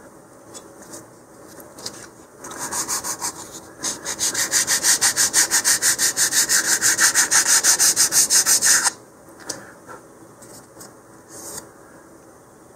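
150-grit sandpaper rubbing on a thin balsa-wood fin in fast back-and-forth strokes, rounding the fin's edges. A short bout of sanding comes about two seconds in, then a longer steady run from about four seconds until nearly nine seconds in. A few faint handling clicks follow.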